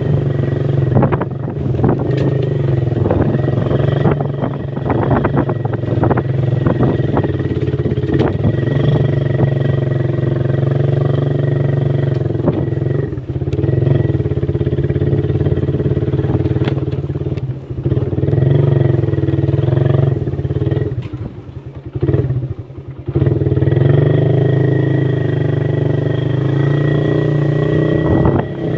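Motorcycle engine running steadily while riding. About two-thirds of the way through it eases off briefly and then pulls again.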